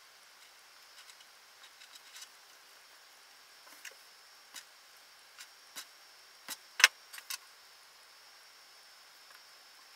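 Faint handling noise of a shielded cable and small metal RCA connector parts: scattered light clicks and taps, with a cluster of sharper clicks about seven seconds in.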